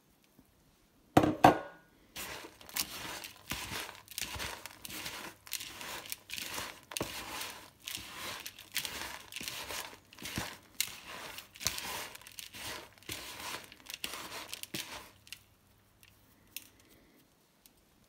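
A hand mixing a dry, crumbly soft food of egg food, chopped carrot, seed and sweetcorn in a plastic bowl: irregular rustling, crunching strokes several times a second, fading out near the end. A single knock comes about a second in, before the mixing starts.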